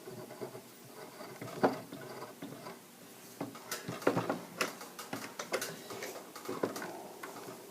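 Irregular clicks and knocks from a threaded 1/2-inch brass pipe being turned into a lead water pipe. The sharpest knock comes about a second and a half in, and a quick cluster follows around four seconds in.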